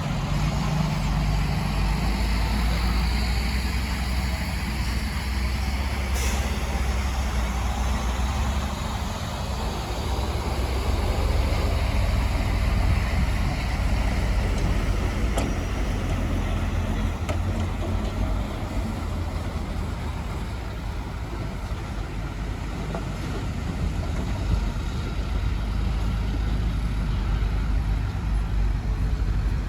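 Heavy diesel engine of earthmoving machinery running under varying load, its low drone swelling and easing, with a sharp click about six seconds in.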